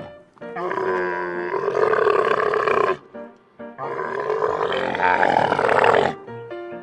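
Camel calling twice, two long calls of about two and a half seconds each, with short piano-like notes in the gap between them and at the end.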